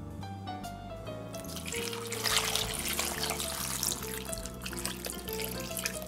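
Seasoning liquid poured from a plastic measuring cup onto raw beef cubes and potatoes in a slow cooker's crock. The trickling splash starts about a second and a half in, is loudest soon after, and eases off near the end, over background music.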